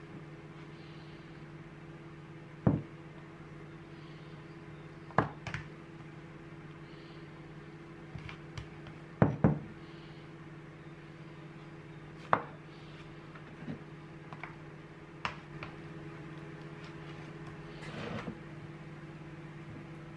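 Metal spoon tapping and scraping against ceramic bowls and a plastic takeaway box while rice and stir-fry are served, a few separate sharp clinks several seconds apart over a steady low hum.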